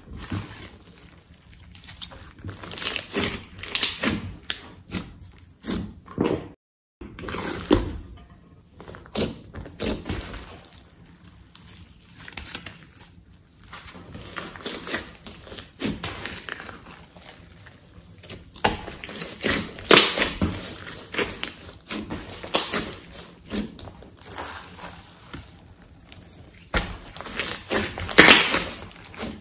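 Hands kneading, squeezing and pressing a large lump of glossy slime, giving irregular sticky squishes with flurries of small pops and crackles. There is a short break in the sound about seven seconds in.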